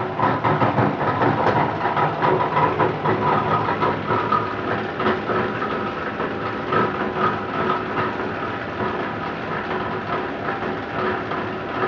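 A low-density polyethylene scrap washer-dryer machine running, with a steady motor hum and a continuous dense, irregular rattle.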